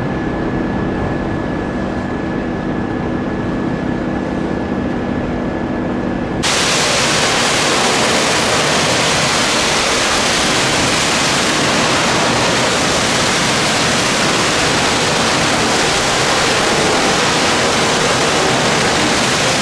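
Jet airliner's engines droning steadily with a thin whine as it climbs away after takeoff. About six seconds in, it cuts off abruptly to a louder, steady hiss.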